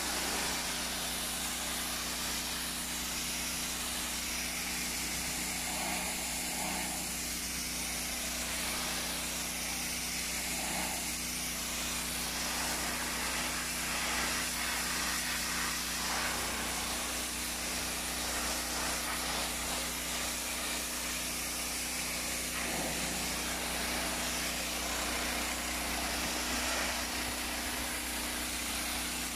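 Ferrex petrol pressure washer running steadily, its engine hum under the constant hiss of the high-pressure water jet striking concrete steps and paving.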